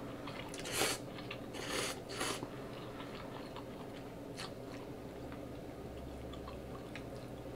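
A person slurping instant ramen noodles off chopsticks: a few short, hissy slurps in the first two and a half seconds. After that comes quieter chewing with small wet clicks.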